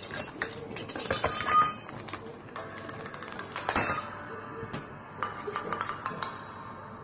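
Plastic bag crinkling as small steel kitchen-set pieces are tipped out of it, the plates, bowls and spoons clinking against each other as they land, with one sharper clatter near the middle.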